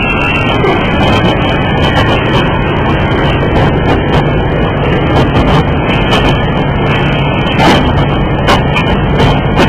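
Porcelain-tumbler finishing machine running: a steady motor hum under a continuous mechanical clatter of irregular clicks and knocks.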